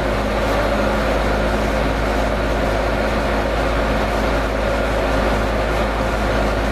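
Vintage ILG box fan running steadily on high speed: an even rush of air over a low electrical hum and buzz. The owner finds the buzz worrying.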